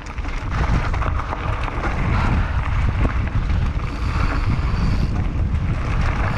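Wind buffeting the microphone of a mountain bike rider's helmet camera on a fast dirt-trail descent, a steady low rumble, with tyre noise and small rattles of the bike mixed in.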